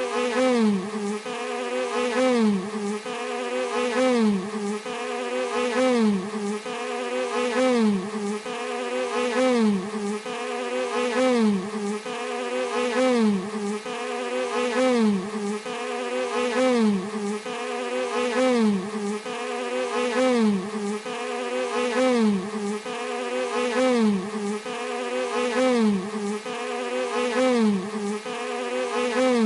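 Bee buzzing steadily, its pitch dipping and swinging back up about once a second in an even, repeating cycle, each swing a little louder.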